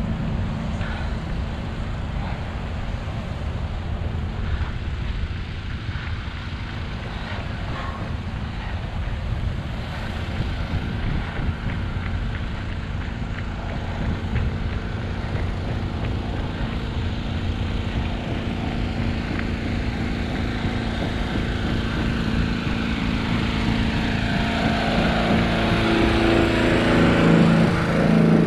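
Steady city road traffic with wind on the microphone; a vehicle's engine hum builds louder near the end as it comes close.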